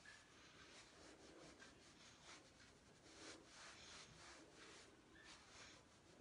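Faint, quick swishing of a makeup brush sweeping powder bronzer across the cheek, several strokes a second.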